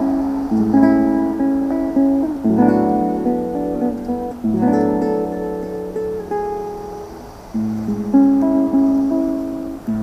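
Guitar music: strummed chords, with a new chord struck about every two seconds.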